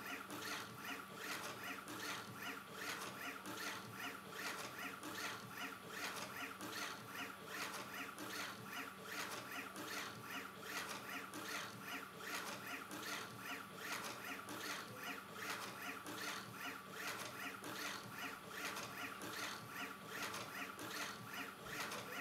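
Stepper motors of a MakerBot Cupcake-clone 3D printer driving the X and Y axes back and forth in quick short moves, a whirring that repeats about three times a second over a steady whine, during an acceleration test.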